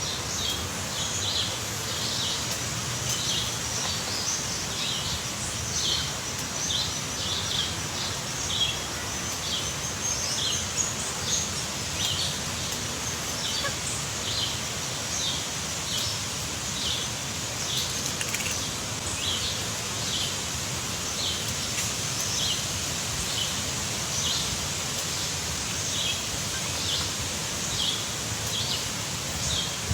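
A bird calling over and over, short high chirps repeating about once or twice a second, over a steady background hiss.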